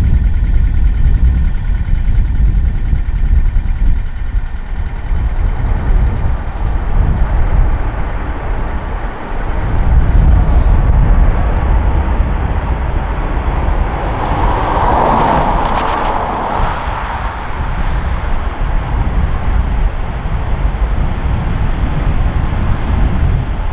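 Boeing 737 airliner rolling out on the runway just after touchdown: steady jet-engine noise over a heavy low rumble, swelling to a louder rush about two-thirds of the way through and then easing off.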